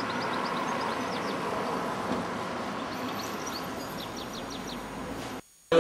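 Street ambience: a steady hum of traffic, with a small bird twittering in quick, short chirps in two bursts, about a second in and again past the middle. The sound cuts off abruptly shortly before the end.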